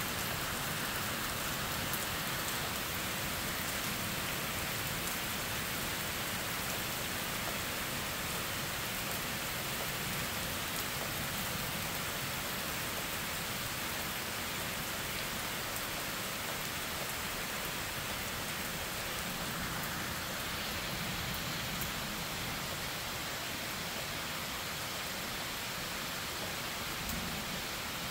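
Thunderstorm rain falling steadily: an even hiss of rain with scattered sharp ticks of individual drops.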